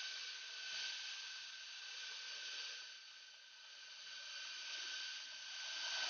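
Steady outdoor background hiss, high and even, with a faint thin steady tone running through it, easing off a little midway.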